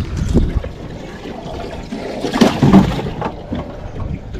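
Water splashing and sloshing, with the loudest splashing a little past halfway through.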